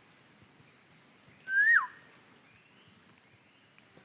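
One loud whistled bird call about one and a half seconds in, rising briefly then dropping sharply in pitch, over a steady high insect drone and faint distant chirps.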